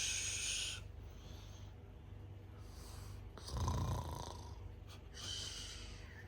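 Snoring breaths: a hissing breath at the start, a short low snore about three and a half seconds in, and another hissing breath near the end.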